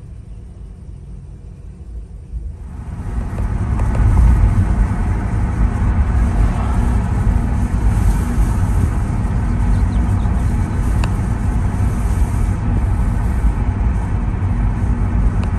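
Ford Transit van heard from inside the cabin: a quiet low rumble at first, then about two and a half seconds in, louder steady engine and road noise as the van drives along the highway.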